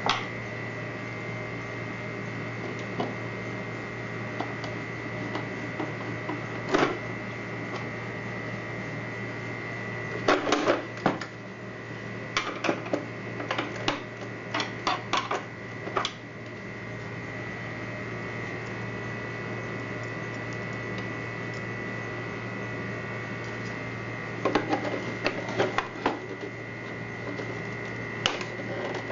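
Scattered clicks and light knocks of plastic parts and small tools being handled while a portable garment steamer is worked on, coming in clusters: a few around the middle and another group near the end. Under them runs a steady hum with a constant high tone.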